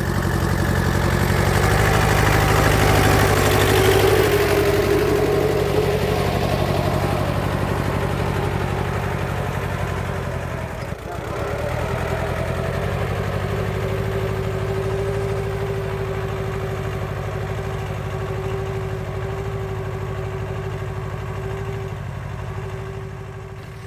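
Massey Ferguson tractor engine running steadily while pulling a plow through potato rows. It is loudest a few seconds in and dips briefly about eleven seconds in.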